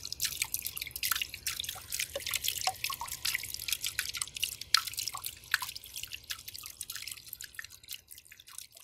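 Water from a small pump-driven hypertufa patio fountain splashing and dripping into its tub: a dense patter of drops with a few plinking ones, fading out near the end.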